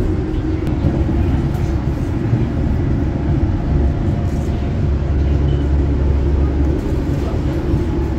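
Passenger train running, heard from inside the carriage: a loud, steady low rumble of the train in motion on the rails, swelling deeper for a couple of seconds past the middle.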